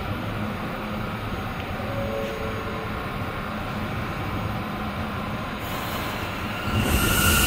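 R179 subway train standing at the platform with its equipment humming after the doors close. A hiss comes up about two thirds of the way in, and near the end the train starts to pull out, getting louder with a steady two-tone motor whine.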